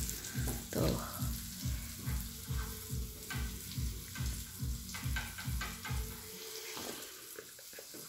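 Steaks sizzling on a tabletop electric contact grill, a steady frying hiss. Under it a low, even thump about three times a second stops about six seconds in.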